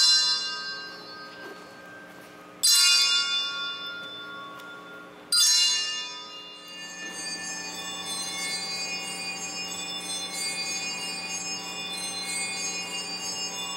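Three loud bell-like metal strikes about two and a half seconds apart, each ringing out with many overtones and fading, then a steady shimmering layer of many held tones from about halfway on.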